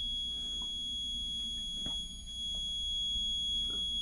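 Steady, high-pitched electronic alarm tone from the boat's engine instrument-panel buzzer, sounding continuously with the ignition switched on and the engine not running. A few faint taps are heard under it.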